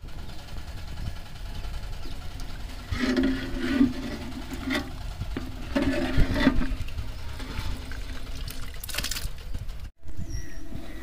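Thin chicken biryani gravy sloshing and bubbling in a large metal pot as a wooden ladle stirs it, louder in two stretches, with a steady low rumble underneath.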